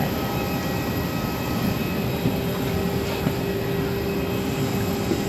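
Steady hum and rush of an airliner cabin's air-conditioning on the ground during boarding, with one constant mid-pitched tone running under it.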